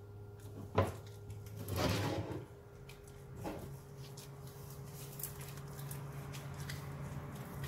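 A sharp click and a couple of knocks or scrapes in the first few seconds. Then gloved hands steadily rub a thick pine tar, linseed oil and beeswax finish along a wooden axe handle.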